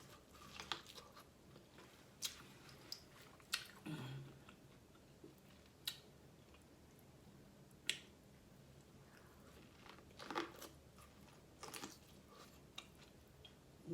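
Close-miked chewing and mouth sounds of someone eating a seafood boil: soft, irregularly spaced wet clicks and smacks, about one every second or two.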